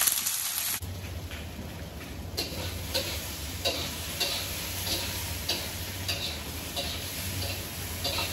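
Pork cubes sizzling as they brown in a wok, with a spatula tapping and scraping the pan about every half second as the meat is stirred, over a low steady hum. The sizzle is loudest for the first second.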